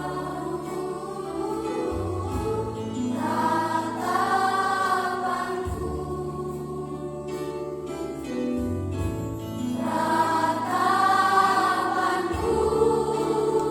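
Sunday-school children's choir singing a Christian song in chorus, in long phrases that swell and fall back, over sustained low accompaniment notes.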